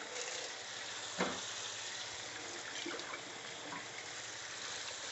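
Curry gravy with potatoes and vegetables sizzling and bubbling in a wok over a gas burner: a steady hiss.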